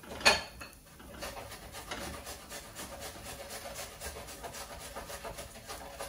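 A silicone spatula stirring and scraping chopped onion frying in oil in a stainless steel pan. There is a sharp knock on the pan just after the start, then a fast run of scratchy scraping strokes over a faint sizzle.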